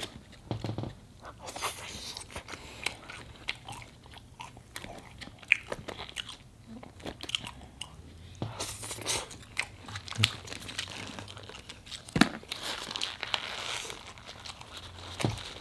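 A person chewing and biting into fast food close to the microphone, with many small, irregular crunching clicks.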